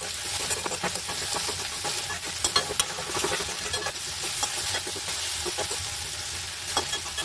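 Okra and bitter gourd sizzling as they are stir-fried in a metal wok, with a metal spoon scraping and knocking against the pan in irregular clicks. The sizzling cuts off suddenly at the end.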